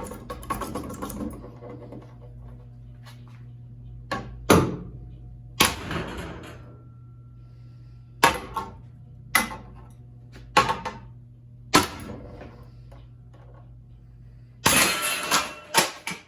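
A ceiling fan being smashed: about ten sharp, hard blows a second or two apart, then a rapid run of louder crashes near the end, all over a steady low hum.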